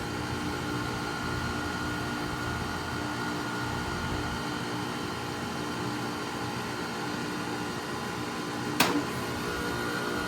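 Outdoor unit of a new 1.5-ton Trane XR14 heat pump running with a steady hum and a faint whine, with one sharp click about nine seconds in.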